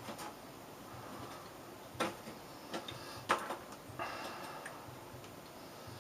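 A few light, sharp clicks and knocks of small objects being handled, over a low background hiss.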